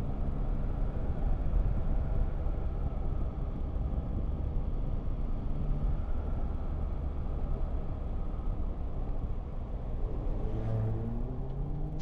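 Motorcycle riding at speed: wind rushing over the camera with the engine's low rumble underneath. About ten seconds in, the engine note rises.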